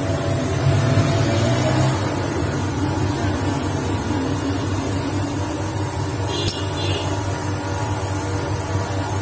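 Steady low mechanical hum of background machinery, with one short metallic click about six and a half seconds in.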